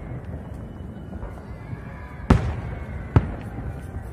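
Aerial fireworks shells bursting: two sharp bangs, the first the louder, about a second apart in the second half, over the low rumble of the ongoing display.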